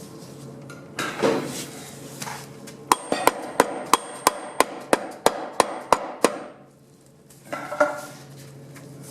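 About a dozen light, quick hammer taps, roughly three a second, on a stuck part inside a 700R4 transmission case, with a faint metallic ring, as the part is tapped to knock it loose.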